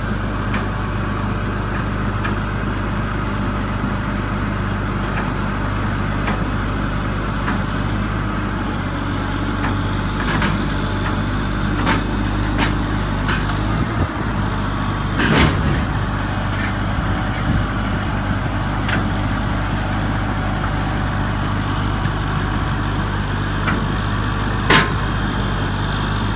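Diesel engine of a heavy rail-recovery crane running steadily as it lifts a derailed tank car, with a few sharp knocks at intervals, the loudest about fifteen seconds in.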